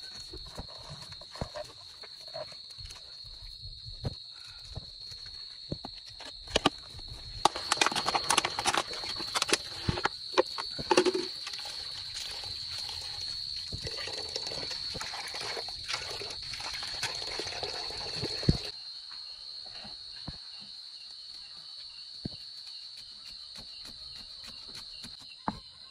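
Water running from a tap into a metal bowl while a handful of crickets is sloshed and rubbed clean by hand; it stops abruptly about two-thirds of the way through. Steady high-pitched insect trilling runs underneath throughout, and a few light knocks of a cleaver on a wooden chopping block come near the end.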